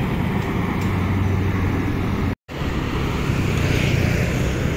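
Road traffic: a double-decker coach's diesel engine pulling away with steady traffic noise around it. It cuts out completely for a moment just past halfway, and then steady passing traffic goes on.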